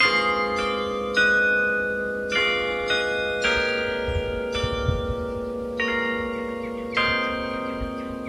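Carillon bells playing a slow folk-tune melody: a new note or chord is struck about every second, and each rings on and overlaps the next.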